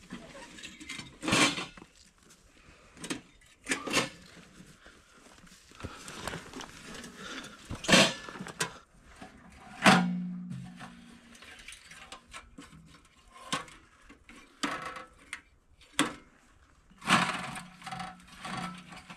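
Scattered knocks, clunks and rustling as a small stainless-steel tent stove is carried in, set down on a board and handled. One loud knock about ten seconds in leaves a short low ring.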